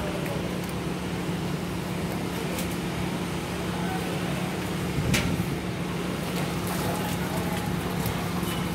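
Engine idling steadily, a low even hum, with one knock about five seconds in.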